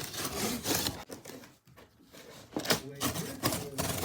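Indistinct talking in a small room, mixed with handling clicks and rubbing.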